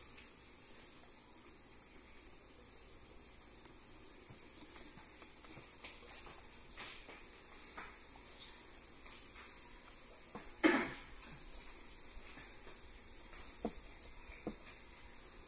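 Steady sizzling of food cooking on the stove, with a few light knocks of a utensil or pot; the loudest knock comes about ten and a half seconds in.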